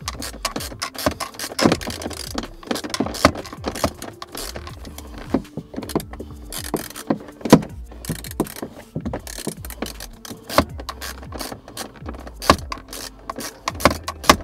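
Ratcheting screwdriver clicking as the T15 Torx screws holding a car's dashboard speaker are undone: runs of sharp small clicks with short gaps between turns.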